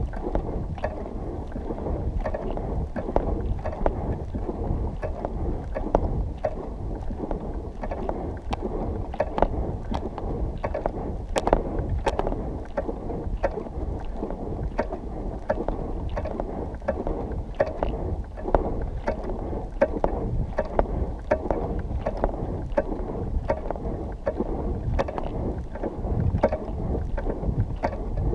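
Muffled, steady rumbling with frequent small knocks and rustles: the handling noise of a camera mounted on the suit of a person walking over sand.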